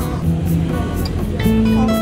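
Background music with guitar strumming.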